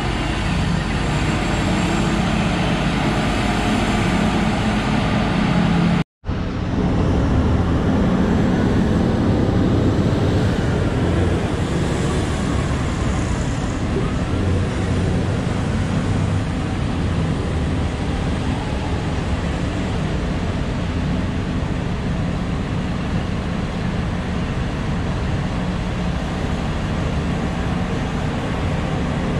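Diesel engines of a Liebherr mining excavator and a Komatsu 730E haul truck running steadily during loading. About six seconds in, the sound cuts out for a moment. It then continues as a steadier, more distant engine noise from machines working across the mine pit.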